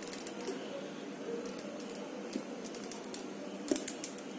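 Quiet steady hiss with a few light clicks about three and a half seconds in, from a small sauce bottle and a plastic spoon being handled over a plastic mixing bowl.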